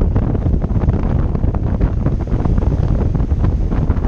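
Wind buffeting the microphone: a loud, uneven low rumble that gusts without letup, with a few faint clicks on top.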